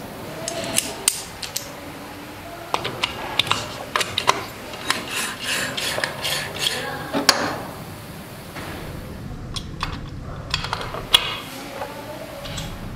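Steel transmission gears and a shift fork clinking and scraping as they are handled and slid onto shafts in the aluminium crankcase half of a 70cc motorcycle engine: an irregular run of sharp metallic clicks and clinks.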